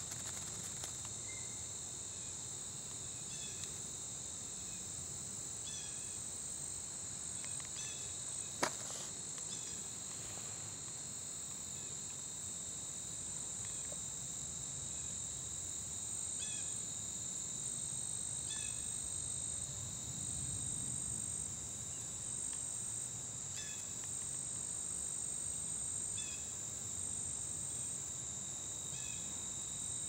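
Steady high-pitched chorus of evening insects such as crickets, with a short chirp repeating every couple of seconds and one sharp click about nine seconds in.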